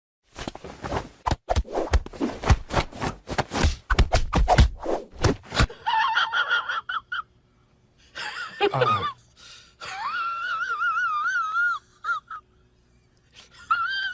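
A rapid run of knocks and clatters, then a cat meowing in several drawn-out calls: one falls steeply in pitch, and a longer one wavers up and down.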